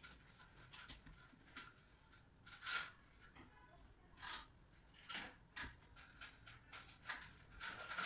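Faint, scattered clicks and scrapes from hands working on overhead metal false-ceiling framing channels, one every second or so.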